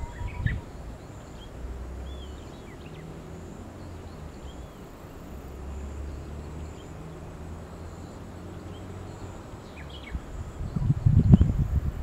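Riverside outdoor ambience: a low steady rumble with a few faint, high bird chirps, then loud, irregular low buffeting about a second before the end.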